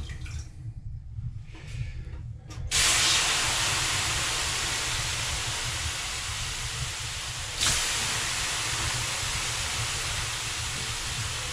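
Water thrown onto the hot stones of a wood-fired Narvi 16 sauna stove, flashing to steam (löyly) with a loud hiss. One throw comes about three seconds in and a second about eight seconds in; each hiss starts suddenly and then slowly dies down.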